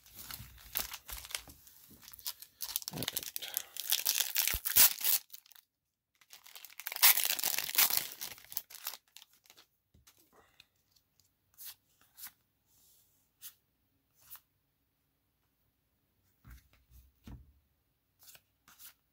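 Plastic wrapper of a Magic: The Gathering collector booster pack crinkling and tearing open in two long stretches over the first nine seconds. Then come faint scattered clicks and taps of the trading cards being handled.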